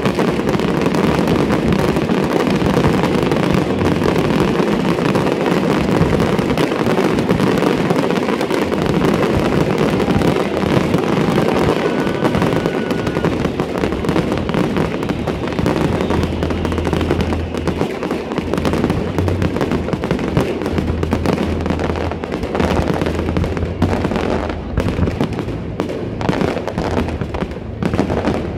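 Fireworks display going off in a dense, continuous barrage of rapid bangs and crackle.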